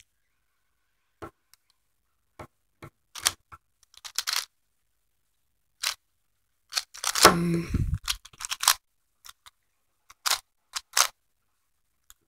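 Plastic 4x4 Rubik's cube layers being turned: irregular sharp clicks and clacks, with a longer clattering burst and a low thump about seven seconds in.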